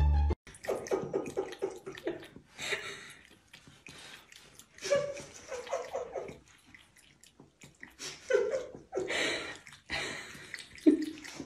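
Water running from a bathroom sink tap, splashing in irregular bursts as a cat drinks from the stream.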